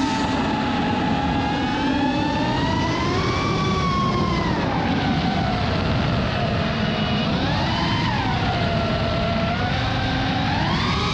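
Whine of a 5-inch FPV quadcopter's four brushless motors (T-motor F40 Pro II, 2400 kV, on 5S) driving its propellers, the pitch rising and falling several times as the throttle changes, over a steady rush of air noise.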